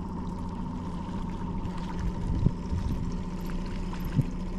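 A boat motor running steadily at trolling speed with water splashing and trickling against the hull, and two short knocks about two and a half and four seconds in.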